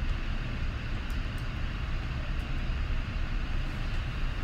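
Steady low rumble with an even hiss over it: background room noise with no distinct event.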